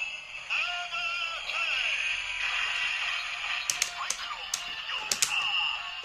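Kamen Rider W Ridewatch toy playing its electronic sound effects through its small, tinny speaker: a synthesized voice and music, with its batteries running low. From about three and a half to five and a half seconds in comes a quick run of sharp plastic clicks.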